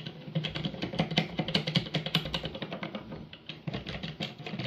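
Rapid, irregular clicking and light knocking of carbon fiber telescope tube rings and their knob-headed clamp screws being handled and worked loose.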